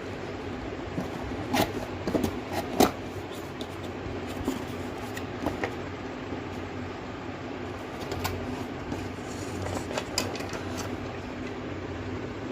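Packaging being handled and opened: scattered clicks, crackles and rustles in two clusters, the sharpest click about three seconds in, over a steady fan-like hum.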